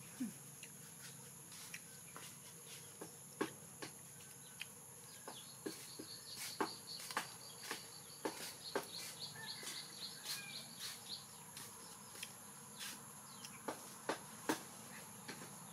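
Steady high-pitched insect drone, with a thinner buzzing tone joining for several seconds in the middle. Over it come irregular light, sharp clicks and taps, a couple a second at most.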